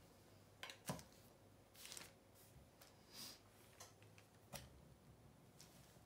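Cake turntable being turned by hand under a painted canvas: a few scattered light clicks and knocks, the sharpest about a second in, with a short soft hiss a little after the middle, over a faint steady hum.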